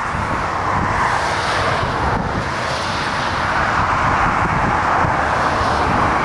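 Jet engines of a twin-engine widebody airliner on final approach, a steady rushing noise growing louder as it nears. Storm wind buffets the microphone underneath as an uneven low rumble.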